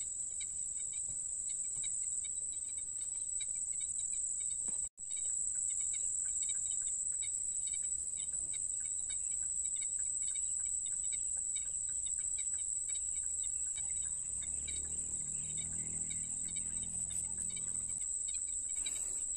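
Insects trilling steadily in one continuous high-pitched tone, with a brief dropout about five seconds in.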